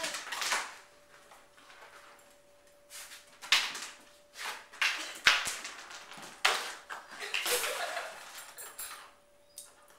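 Ice cube skittering and clattering across a tile floor as a puppy paws at it, with his claws clicking on the tiles: several sharp scrapes and knocks at uneven intervals.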